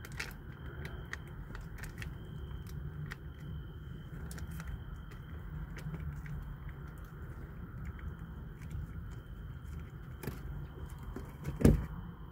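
Foil wet-food pouch crinkling in scattered light clicks as it is squeezed out, over a steady low hum. Near the end there is one loud, short thump.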